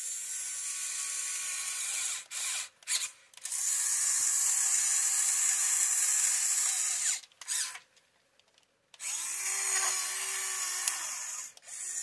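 Huina 1550 RC excavator's electric arm motors and gearing whirring as the boom and bucket arm move. It runs in several stretches, stopping briefly a few times, with a longer pause about eight seconds in.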